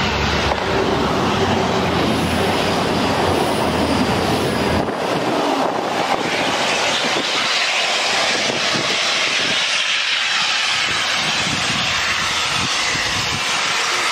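A GWR Intercity Express Train (Class 800-series) passing close by at speed: a loud, steady rush of wheels on rail and moving air, with a low rumble that fades about five seconds in, leaving a brighter hiss.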